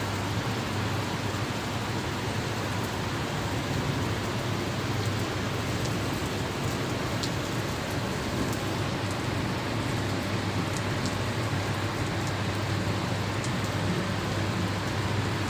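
Steady rain falling: an even hiss with a constant low hum underneath and scattered sharp drip ticks.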